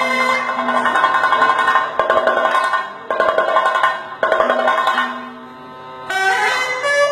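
Chenda drums played in fast, dense rolls against sustained held notes, in Kerala traditional music. The drumming breaks off briefly twice, then drops away about five seconds in before starting again near the end.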